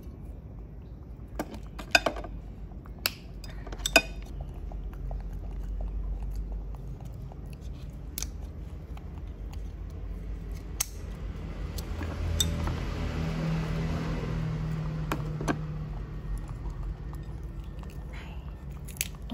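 A baby monkey peeling and chewing pieces of a tuber: scattered small clicks and crunches of handling and eating. A low hum swells and fades in the middle.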